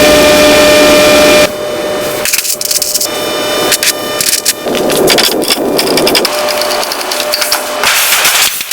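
Wood being worked with tools: a loud steady whine for about the first second and a half, then rapid scraping, rasping and cracking.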